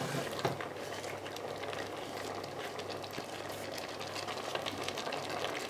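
Chicken and onions in a Polaris multicooker bowl on its frying mode, sizzling and bubbling gently in their own juices with a steady hiss. A few soft taps as diced sweet pepper drops in near the start.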